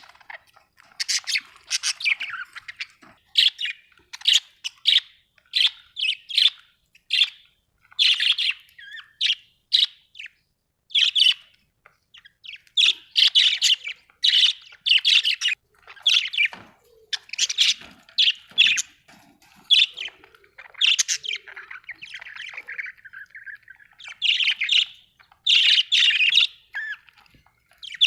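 Budgerigars chirping and warbling: quick bursts of high chirps and squawks in clusters, with short pauses between them.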